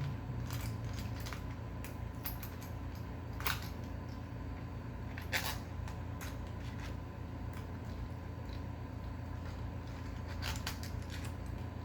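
Scattered light clicks and taps of deadbolt lock parts being handled and fitted into the door, a dozen or so spread unevenly, over a steady low hum.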